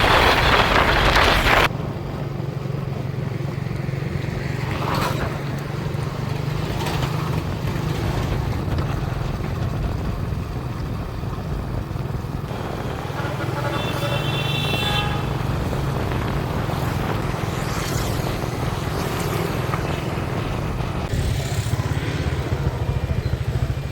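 Motorbike engine running steadily while riding, with wind buffeting the microphone for the first second or two.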